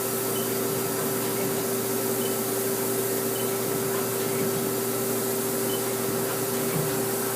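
Haas SL-20T CNC lathe running with a steady hum and a constant mid-pitched tone while its turret is indexed, with only a faint tick about four seconds in.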